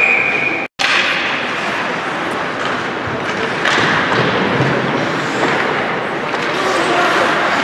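Game noise in an indoor arena: a steady din of crowd and play with occasional thuds. A short, steady high tone sounds at the very start, and the audio drops out briefly just under a second in.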